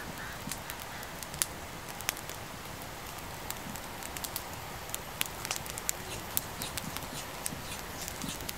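Wood fire of thin sticks crackling under a blackened cooking pot: sharp, irregular pops and snaps, a few much louder than the rest, over a steady hiss.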